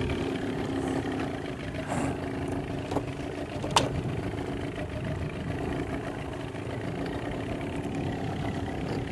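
Boat engine idling steadily, with wind rumbling across the microphone. A single sharp click about four seconds in.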